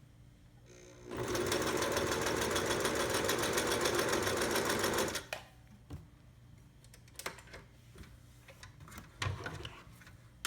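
Singer Touch & Sew Special Zig Zag 756 sewing machine running for about four seconds with a rapid, even stitching rhythm as it sews a zigzag stitch, then stopping. A few light clicks and handling noises follow.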